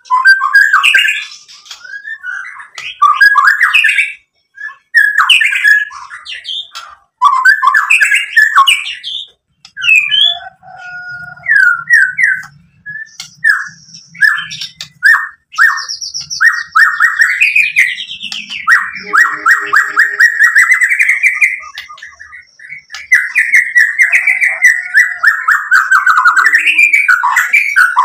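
White-rumped shama singing loud, varied song phrases with short pauses, and a long run of fast repeated notes near the middle.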